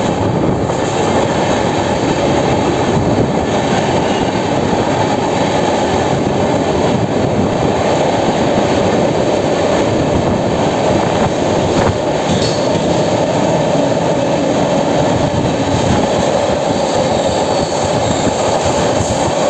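Express train coach running at speed through a station without stopping: steady, loud noise of the wheels on the rails.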